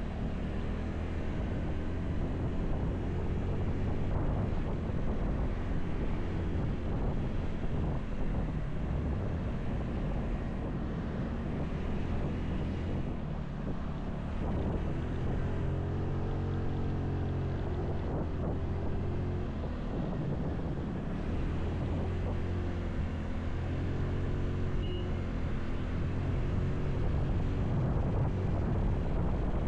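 Motorcycle engine running under way, with wind buffeting the camera microphone. The engine note rises and falls a few times around the middle and again near the end.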